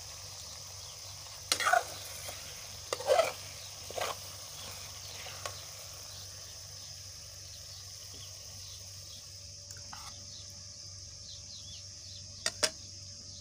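Metal spoon scraping and knocking against a pan as cooked okra is stirred and scooped out: several sharp scrapes in the first five seconds and two quick clicks near the end, over a steady high hiss.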